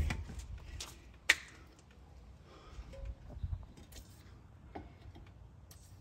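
Scattered clicks and light knocks from tools and parts being handled during a car repair, with a sharp click about a second in and a small cluster of knocks a little after the middle.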